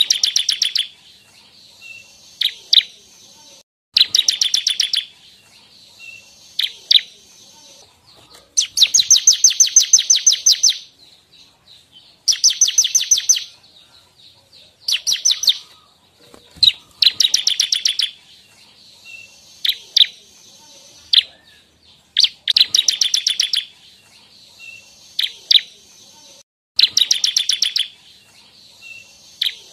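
Ciblek (bar-winged prinia) singing. It gives repeated bouts of rapid, high chattering trills about a second or two long, a few seconds apart, with single sharp chip notes between them.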